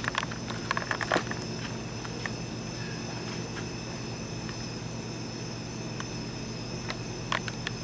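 Steady night-time background: a low even hum under a high, steady insect chorus, typical of crickets. A few light clicks come in the first second or so and again near the end.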